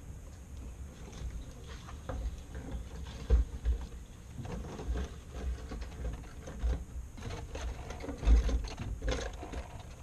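Irregular clicks and knocks of hand tools and parts being handled during work on the car, with scattered low thumps; the loudest thump comes about eight seconds in.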